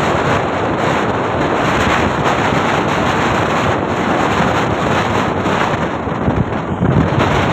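Wind rushing over the microphone of a moving motorcycle: a steady, even hiss with no clear engine note.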